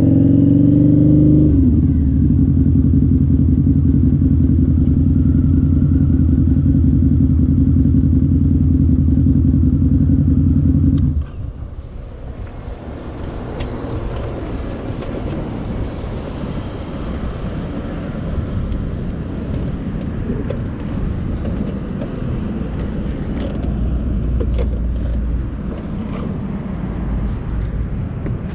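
2003 Harley-Davidson V-Rod's V-twin through a CFR aftermarket exhaust, revs falling for a second or two and then idling steadily, until the engine is switched off suddenly about eleven seconds in. After that only a steady background hiss with a few light clicks.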